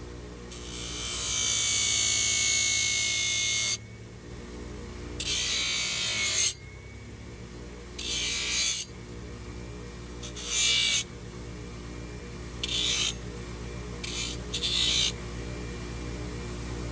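A handheld power tool running in repeated bursts: one long run of about three seconds, then shorter and shorter bursts of about a second or less, over a steady low hum.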